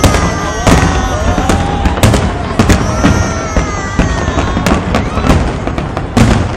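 Aerial fireworks display: a rapid run of sharp bangs, several a second, with whistling tones rising and falling between them.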